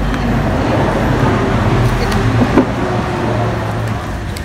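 A motor vehicle engine running with a steady low rumble that eases off about four seconds in.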